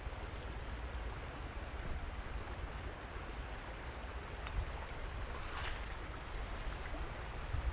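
Stream water running over stones, a steady rushing, with a low wind rumble on the microphone.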